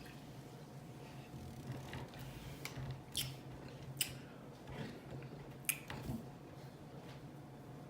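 A person drinking ginger ale straight from a 2-liter bottle: a handful of short, sharp clicks and swallowing noises over a low steady hum.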